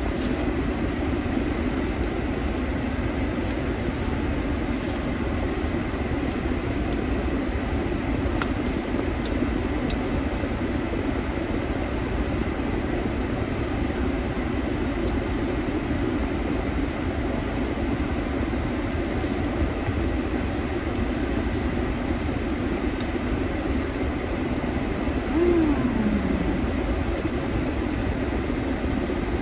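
Steady road and engine rumble inside a moving car. Near the end there is a short falling whine.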